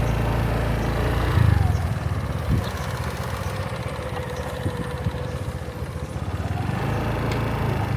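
Motorbike engine running steadily at low speed, with a brief louder surge about a second and a half in.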